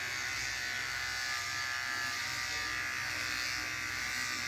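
Electric shaver buzzing steadily as it is run over a heavy growth of beard, in a small tiled bathroom.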